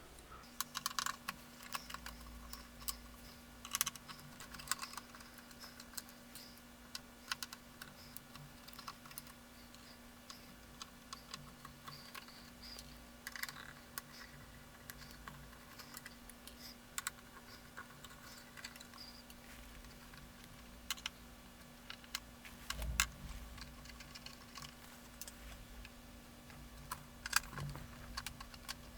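Scattered small clicks and taps of a screwdriver working slot-headed screws out of a metal calculator case, with the screws and parts being handled, over a faint steady hum.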